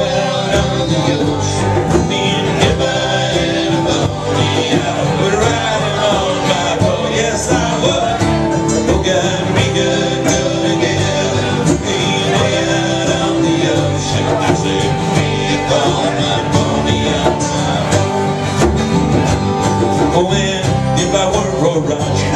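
Live acoustic country-bluegrass band playing a song, with strummed guitar and plucked strings, and a voice singing over them, recorded through a small camcorder's built-in microphone.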